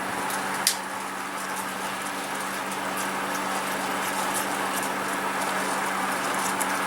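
Sauce bubbling and sizzling in a pan as it reduces down to very little, close to burning, over a steady low hum, with one sharp click under a second in.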